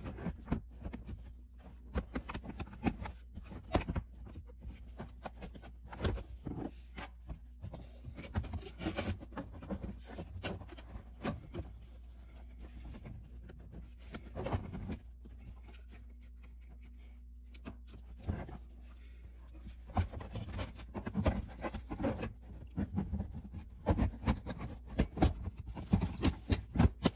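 A plastic interior kick panel being handled and fitted back into place: scattered rubbing and scraping with intermittent clicks and knocks, which come more often and sharper in the last several seconds as the panel is pressed home.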